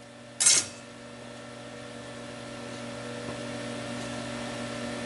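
A short, loud clatter about half a second in, followed by a steady hum of workshop equipment, with a few fixed tones in it, that slowly grows a little louder.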